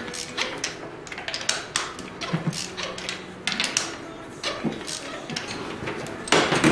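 Spark plug wrench clicking and knocking against metal as the spark plugs are broken loose in a Toyota engine's cylinder head: a string of irregular short clicks, with a denser scrape near the end.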